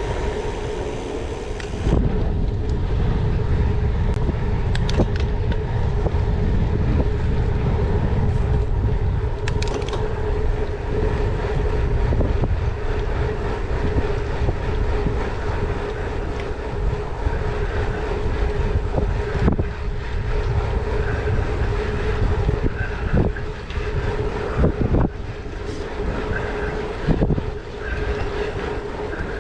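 Wind rush and tyre rumble from a gravel bike on the move, with a steady hum throughout and a few sharp knocks here and there.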